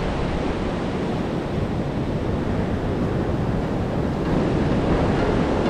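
Surf washing onto a sandy beach, with wind rushing across the microphone in a steady noise.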